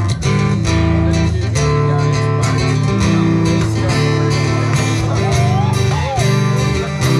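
Acoustic guitar strummed in a steady rhythm, playing an instrumental passage of a song with changing bass notes.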